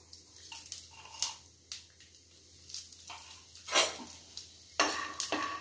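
A metal spoon stirring raw peanuts in an aluminium kadhai, giving irregular clinks and scrapes against the pan that grow louder and longer near the end.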